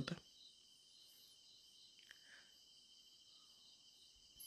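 Near silence, with a faint steady high-pitched drone of crickets or other insects from the plantation.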